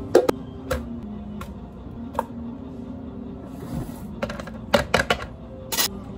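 Sharp clinks and knocks of a ladle against plastic cups as strawberry puree is spooned in, then a quick run of clattering about four to six seconds in as ice cubes drop into the cups.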